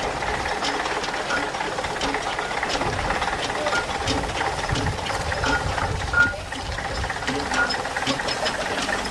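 Fowell steam traction engine running along the road: a steady rhythmic mechanical beat with steam hiss, and a low rumble that swells in the middle as it passes close.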